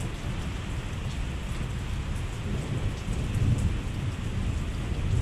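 Steady rain with a low rumble underneath that swells briefly about three and a half seconds in.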